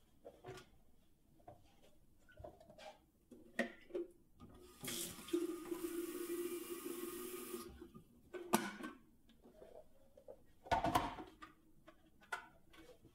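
A water tap running into a sink for about three seconds, starting about five seconds in, then shut off. Small knocks and handling clatter come before it, and two louder knocks follow.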